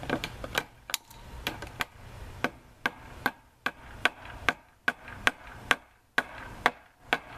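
A ball-peen hammer tapping repeatedly, about two or three strikes a second, driving the bent 90-degree end of a steel trellis support wire into a wooden crossarm like a nail. Many strikes carry a short metallic ring.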